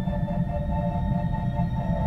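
Ambient music: a steady drone of several sustained, organ-like tones over a dense low rumble.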